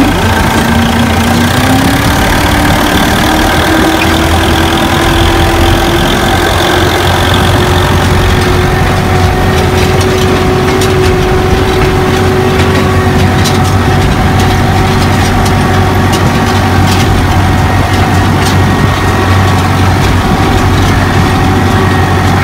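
Türk Fiat 640 tractor's diesel engine running steadily and loud, its pitch rising over the first couple of seconds and then holding.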